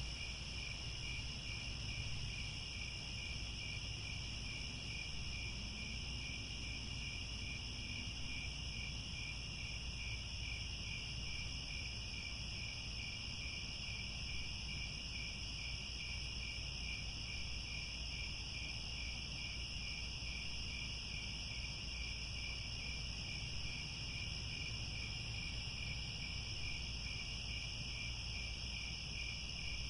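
A steady chorus of crickets, many trilling together without a break: one lower, finely pulsing trill and one higher, smoother one, over a faint low rumble.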